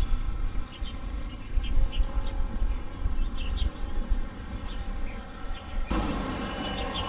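Outdoor ambience: a low rumble with short high chirps scattered through it, and a denser, steadier noise that sets in about six seconds in.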